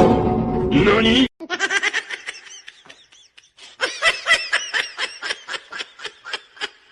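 A loud, noisy sound cuts off suddenly about a second in. Then comes high-pitched laughter in quick bursts, several a second, fading briefly around the middle before picking up again.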